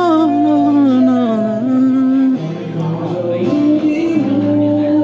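Music: a song with long held, gently sliding sung notes over plucked guitar accompaniment.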